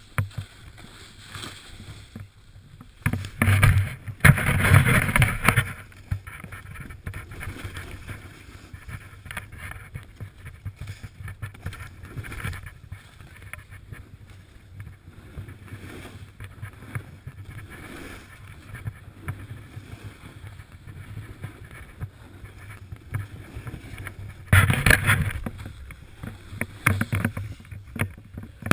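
Snowboard sliding and turning through deep powder snow: a continuous swish and hiss of the board in the snow, with two louder rushes, about four seconds in and near the end.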